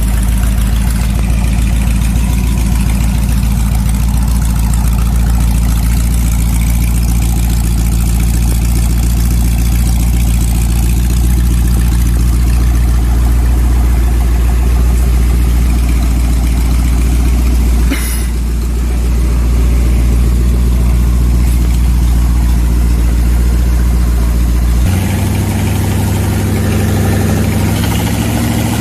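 Old engine running steadily at a low, even idle, with a sharp click about eighteen seconds in. Near the end its note changes and rises as it picks up speed.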